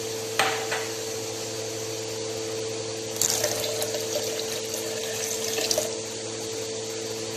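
Cold water poured from a drinking glass into a stainless-steel blender jar, splashing steadily for about three seconds from around three seconds in, over a steady low hum.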